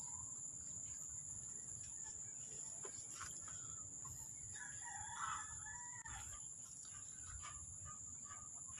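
A rooster crowing faintly, with one call about four to five seconds in, over a few soft rustles and clicks.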